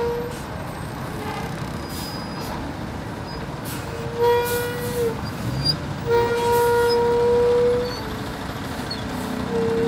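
Vehicle horn sounding in steady blasts over the running engines of a queue of buses: a short blast, then a longer one of about two seconds, and another starting near the end.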